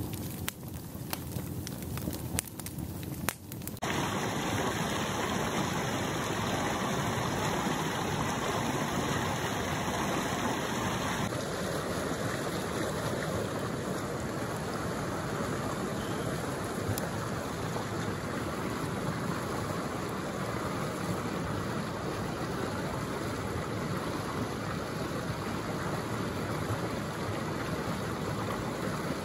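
A wood fire crackles for the first few seconds, then gives way to the steady rush of a fast-flowing river over rocks.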